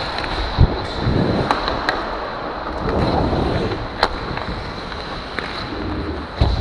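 Ice hockey skate blades scraping and carving on the ice, close up, with several sharp clacks of sticks and puck.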